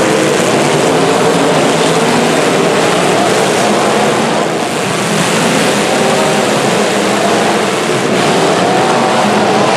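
Several demolition derby cars' engines running and revving at once: a loud, steady mix of engine notes at different pitches that waver up and down.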